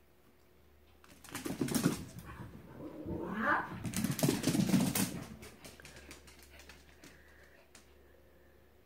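A corgi running and scrabbling about on a vinyl kitchen floor, its claws clicking and skidding rapidly in two loud flurries between about one and five seconds in, then tapering off. A short rising-and-falling squeal sounds about three and a half seconds in.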